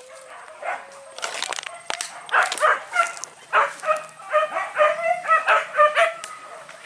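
Hunting dogs yelping and barking in a quick, excited string of short calls that grows louder after about two seconds.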